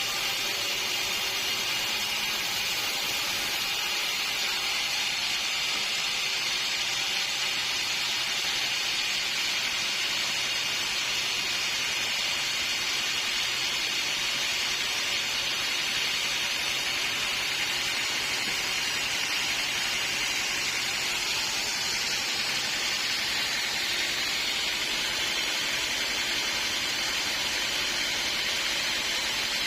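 Sawmill band saw cutting through a log: a steady, even hissing rush that holds at the same level throughout.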